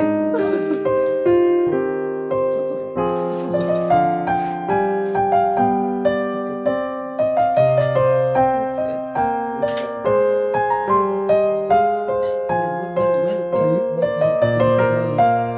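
Background piano music: single notes struck and fading in a flowing melody over lower held notes.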